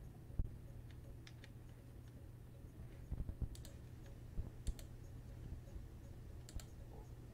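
Sparse clicks at a computer, singly and in small clusters, over a steady low hum: keys or mouse being worked while a live stream is set up.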